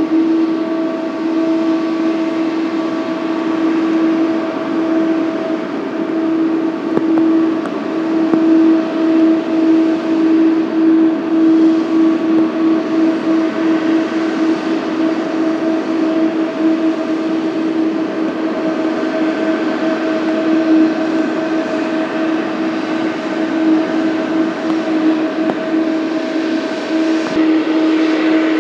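Jet airliner engines running at a steady pitch: a droning whine over a rushing noise, wavering in loudness without rising or falling.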